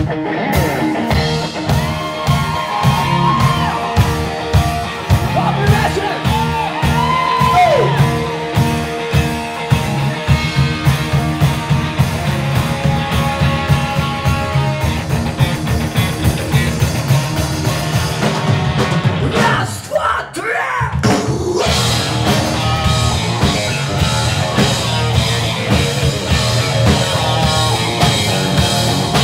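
Rock music with a steady drum beat, guitar and some singing, dropping out briefly about twenty seconds in before the band comes back in.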